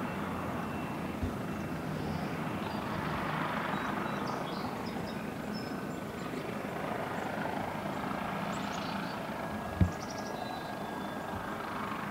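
Twin turbocharged piston engines and propellers of a Cessna 320E Skynight droning steadily at low power through touchdown and the landing rollout, heard at a distance. A single dull thump near the end is the loudest moment, and faint high chirps come and go.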